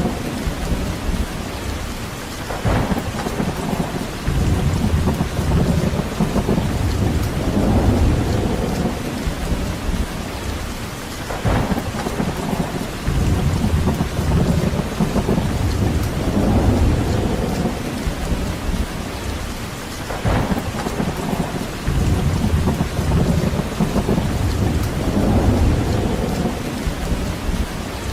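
Steady rain with low rumbles that swell and ebb every few seconds, and three sharp cracks evenly spaced about nine seconds apart.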